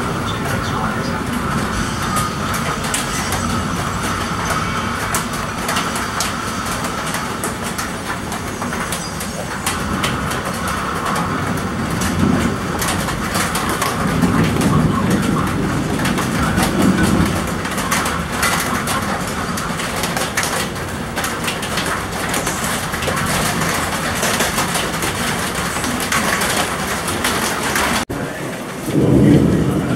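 Heavy rain falling steadily, with many sharp drops hitting close by and a low rumble that swells and fades. The sound cuts out briefly near the end.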